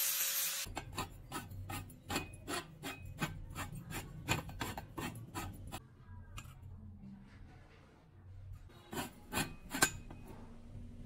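An angle grinder with a flap disc runs on the steel pipe and cuts off about half a second in. Quick scraping strokes follow, about four a second, for several seconds. After a quieter stretch, a few more strokes come near the end.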